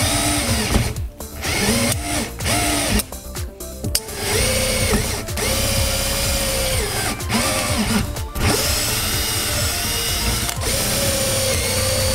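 Cordless drill run in several short bursts of one to three seconds as it bores into PVC pipe. Its motor whine glides up and down at each start and stop.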